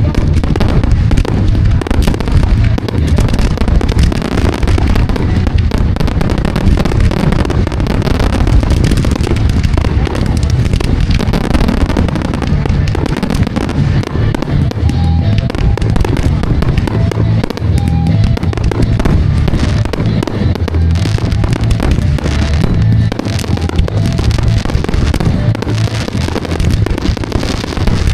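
A dense, unbroken barrage of firework bursts, deep booms overlapping one another with crackling between them, loud and without pause.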